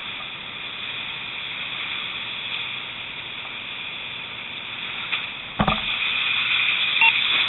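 Steady hiss of a fire hose stream and steam as water hits a burning structure, with one thump about five and a half seconds in, after which the hiss grows a little louder.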